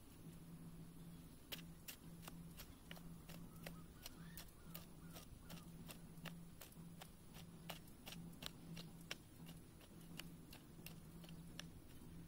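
Faint, irregular crunchy clicks, about three a second, as a hand hoe chops and scrapes dry soil. A low hum comes and goes underneath.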